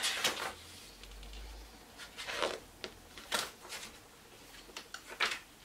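Paper brochure pages being turned by hand: several short, separate page-turning rustles with pauses between them.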